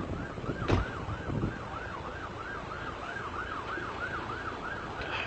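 Police siren sounding in a fast yelp, its pitch sweeping up and down about three times a second. A sharp knock about a second in.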